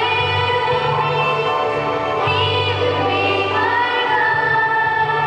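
A choir singing a song with instrumental accompaniment: held sung notes over a steady bass line.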